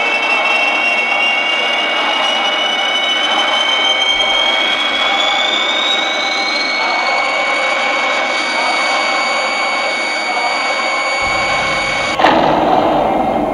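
Jet-engine sound effect: a loud, steady rushing with a whistling tone that rises in pitch over the first several seconds and then holds. About twelve seconds in it breaks off into a sudden louder, harsher burst.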